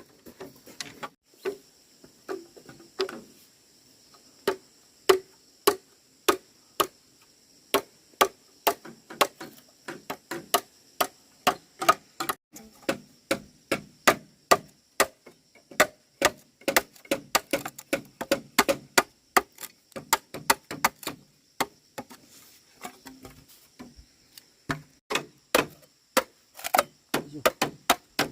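Irregular series of sharp knocks and cracks, about one to three a second, some strikes noticeably louder than the rest, typical of manual work with wood or corn.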